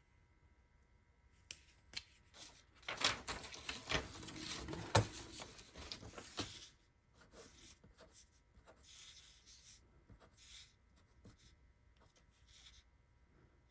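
Paper sliding and rustling on a workbench with a few sharp knocks as metal digital calipers are picked up and set down, a few seconds in. After that, faint scratching of a fine-tip pen writing figures on paper.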